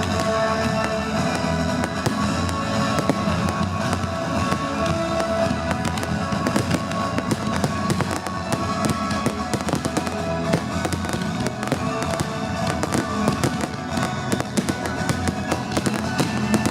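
Fireworks display: rapid, continuous bangs and crackling of shells bursting, over loud music played with the show.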